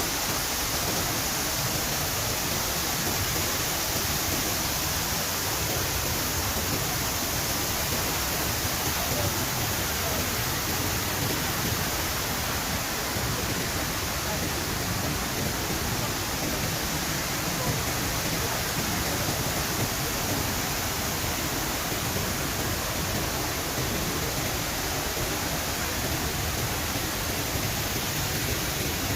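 Shiraito Falls, a wide curtain of many thin streams of water falling over a rock face, giving a steady, even rush of water.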